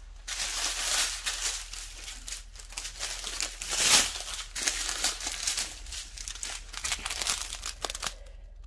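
Plastic packaging crinkling and crackling as a bundle of plastic-wrapped bags of diamond painting drills is handled and pulled apart, loudest about four seconds in and dying away near the end.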